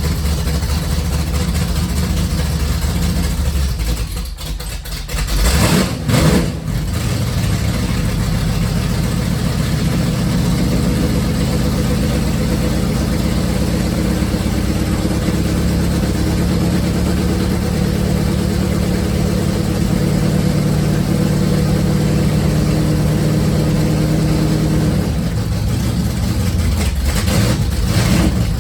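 1968 Plymouth Barracuda drag car's engine running through extra-long open header collector extensions, warming up at idle just after being started. It sags and picks up again about four to six seconds in, then settles into a loud, steady idle.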